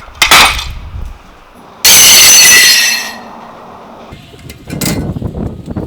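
Clanks and knocks of loose metal parts being handled, with about a second of loud hissing noise that starts suddenly a couple of seconds in and then dies away.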